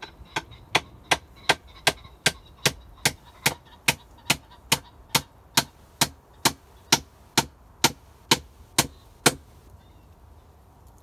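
Hammer striking a wooden plank in a steady run of about twenty sharp blows, roughly two and a half a second, which stop about nine seconds in.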